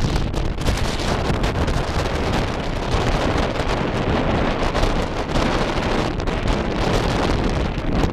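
Wind buffeting the microphone from a moving car, over steady road noise from driving on a dirt track.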